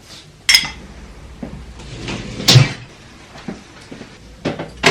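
A few sharp household knocks and clatters: about three separate impacts, the loudest a dull knock about two and a half seconds in.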